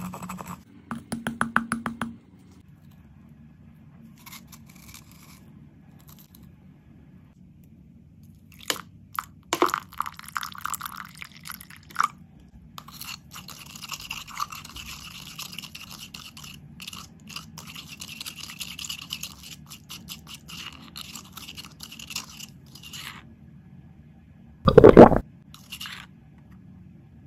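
Stone pestle grinding rapidly against a stone mortar for the first two seconds, then, after a quiet stretch, scattered clicks and a long steady scrape of a plastic spoon stirring liquid in the stone mortar. Near the end comes one short, very loud burst.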